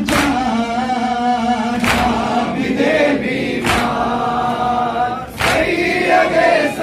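Noha chanted by a male reciter through a microphone with a group of men singing along, broken by sharp unison chest-beating (matam) slaps about every two seconds, four times.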